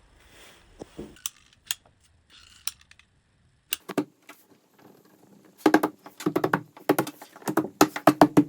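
Wooden trim and hand tools being handled: scattered sharp clicks, then from about halfway through, bursts of rapid clattering knocks.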